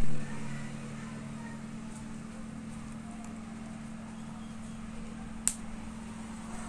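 Handling sounds of a metal spoon and steamed vegetables on a stainless steel tray: a knock at the start and a sharp click about five and a half seconds in, over a steady low hum.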